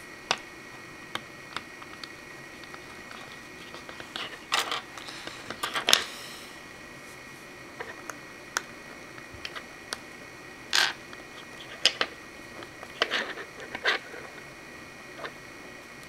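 Hard plastic Lego Bionicle parts clicking as they are snapped and pressed together by hand, with pieces knocking on a wooden table. The clicks are irregular and scattered, with louder clusters around the middle and again later on.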